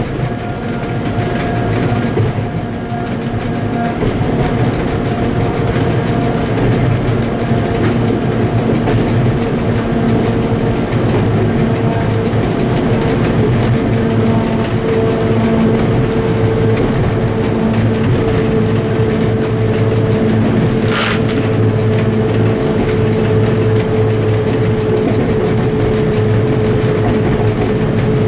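Diesel engine of an M62 locomotive running steadily under load with a steady droning tone, heard in the cab of a heavy freight train rolling along the track. A brief hiss about three quarters of the way through.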